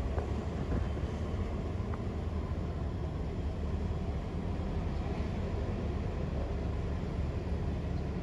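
Diesel engine of a Mercedes-Benz OH 1626 L coach, mounted at the rear, running as the bus pulls away at low speed, a steady low rumble.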